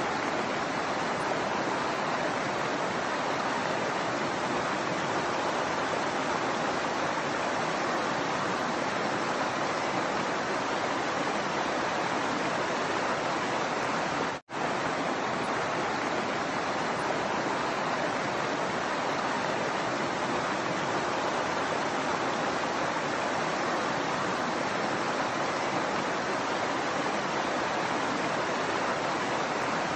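Shallow stream running over rocks: a steady rush of water. It cuts out for an instant about halfway through.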